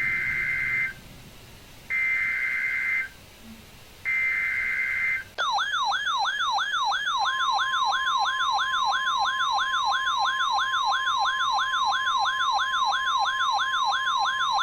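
NOAA Weather Radio SAME alert header: three one-second bursts of buzzy digital tones, about two seconds apart. A weather-alert radio's warbling siren alarm then sounds, rising and falling about three times a second, and about two seconds in the steady NOAA Weather Radio warning tone joins it, signalling a new weather alert.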